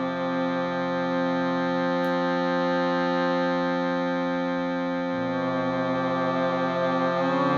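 Shruti box drone: several reeds sounding a steady, sustained chord, with the lower notes changing about two seconds in and again a little after the five-second mark.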